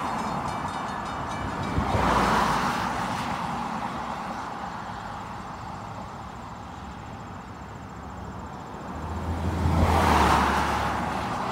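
Road traffic passing: two vehicles swell past, around two seconds in and again near ten seconds in, the second with a low engine rumble.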